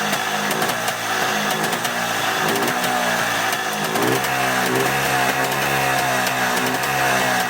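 Fantic 243 trials bike's two-stroke engine running and being blipped, its pitch rising and falling, then held steadier at higher revs from about four seconds in. It is being run to burn off excess oil after a crank seal replacement.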